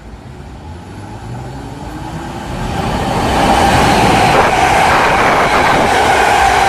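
Electric locomotive-hauled passenger train approaching and passing the platform without stopping. It grows louder over the first three seconds or so, then runs on steadily with a high whine and wheel clatter on the rails.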